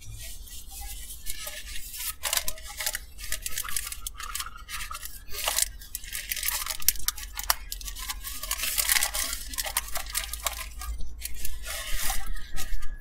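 Paper sandwich wrapper crinkling and rustling in irregular bursts while it is handled, mixed with close-up eating, over a steady low hum.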